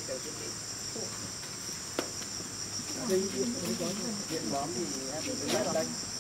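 Steady, high-pitched insect chorus: a continuous shrill buzz of many insects. Faint talking comes in from about three seconds in.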